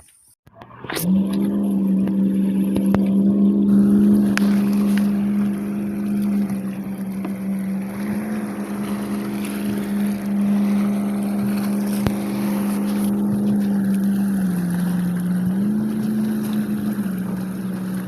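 Motorboat engine running loud and steady, a strong droning hum. It comes in suddenly about a second in, and its pitch dips briefly and then rises again near the end.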